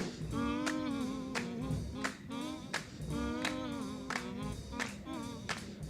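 Background music: a song with a singing voice over a steady beat of sharp percussive strokes.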